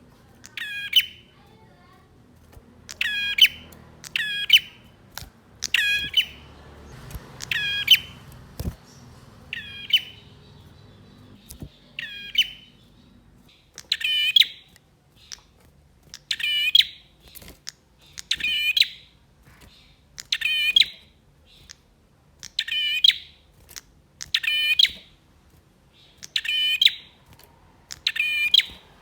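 Male prinia (prenjak) calling: short, sharp chirps repeated roughly every two seconds.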